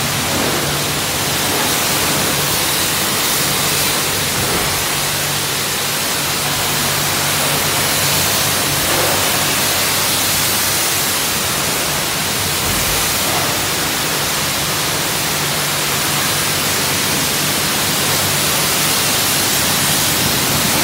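High-pressure water spraying from a self-serve car wash wand onto a car's body: a steady, loud hiss with a low hum underneath.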